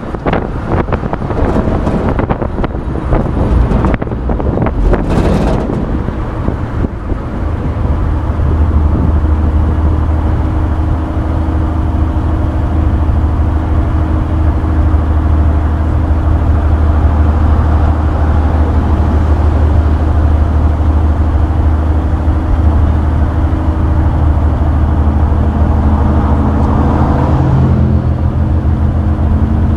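A 1966 Chevrolet pickup truck driving, heard from its open bed: wind buffets the microphone for the first several seconds, then a steady engine drone with road noise. The engine note rises near the end.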